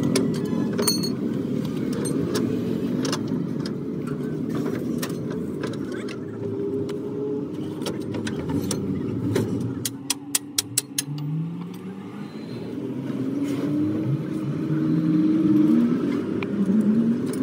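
A vehicle engine running steadily and then revving up with rising pitch, with scattered sharp metallic clicks and taps of a steel bar against a truck's leaf spring leaves, including a quick run of clicks about ten seconds in.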